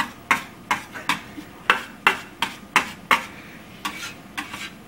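A utensil stirring and scraping egg yolks around a stainless steel frying pan: a run of short scrapes and clinks, about three a second.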